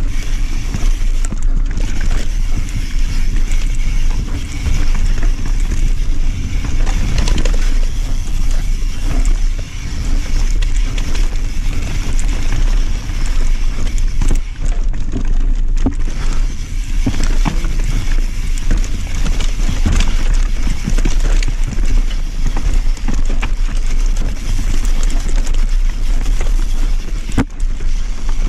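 Mountain bike descending a rough dirt trail at speed: wind buffeting the camera's microphone over the steady rumble of tyres on dirt and the rattle of the bike, with frequent sharp knocks as it rolls over rocks and roots.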